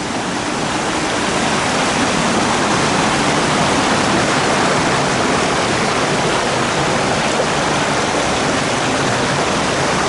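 Loud, steady roar of a waterfall and river rapids rushing over rocks.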